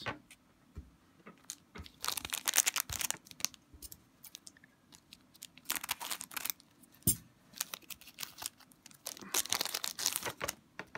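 Wrapper of an Upper Deck Portfolio hockey card pack crinkling as it is handled and torn open, in several short bursts, with a single sharp click a little past the middle and the longest burst near the end.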